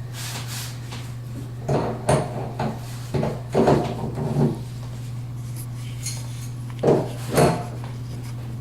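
Irregular knocks and clatters of tools and plumbing fittings being handled under a bathroom sink, in two clusters, over a steady low hum.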